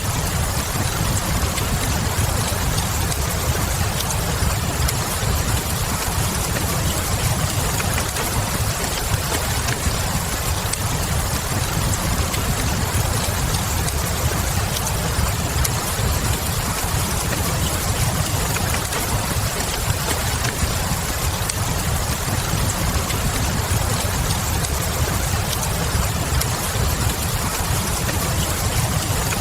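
Fireplace-and-rain ambience: a steady hiss of rain over a deep, even rumble, with soft fire crackles.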